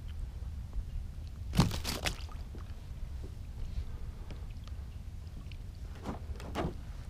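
Knocks and scuffles as a sheepshead is handled in a rubber-mesh landing net against a kayak's plastic hull: a loud knock with a short scuffle about a second and a half in, and two lighter knocks near the end, over a low steady rumble.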